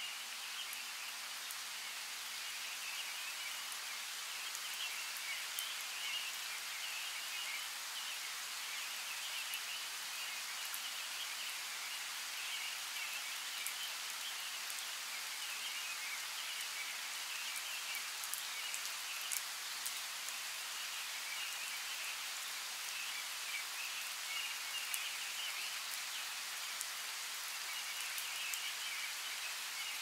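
Steady rain falling on forest foliage, with scattered sharp drop ticks. A high, wavering animal chorus swells and fades in the background.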